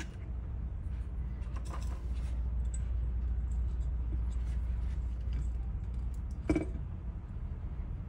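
A steady low hum, with a few small clicks and taps as a soldering iron and solder wick are handled against an aluminium heat sink. The loudest tap comes about six and a half seconds in.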